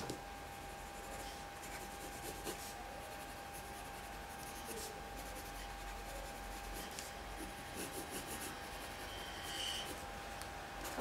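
Graphite pencil shading on drawing paper: faint, continuous scratching strokes as the tone of a portrait is built up.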